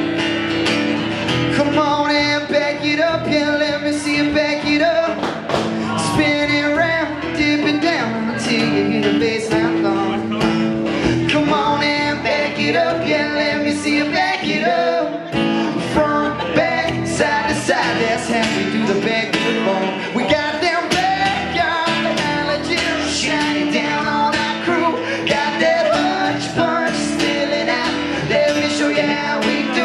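Live country song: an acoustic guitar strummed steadily under male voices singing, two singers at once at times.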